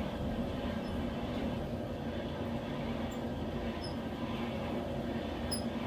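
Coal forge blower running steadily, a low even hum with one constant tone, as it blows air into the fire to bring the steel back up to heat.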